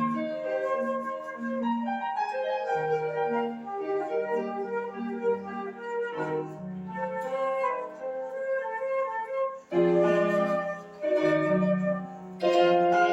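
Flute playing a melody in rehearsal, over a sustained lower accompaniment, with brief pauses between phrases near the end.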